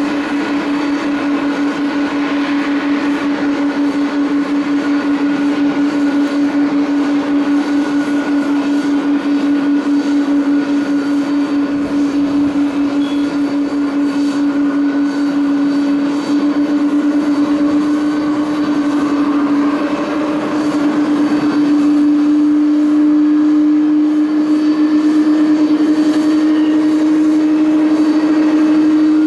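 Jet aircraft engine noise: a strong steady hum that creeps slowly up in pitch, over a wash of engine roar, growing a little louder in the second half.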